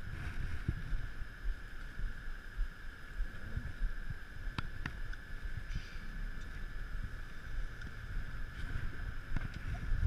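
Open-air ambience on a small boat on a river: uneven low wind rumble on the microphone with water moving against the hull, over a steady high hum. A couple of faint sharp clicks come about halfway through.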